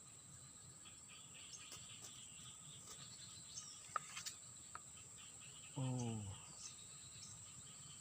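Outdoor insect and bird ambience: a steady high insect whine with scattered bird chirps and a few light clicks. About six seconds in comes a short, low voiced sound that falls in pitch, likely a person's brief grunt or utterance.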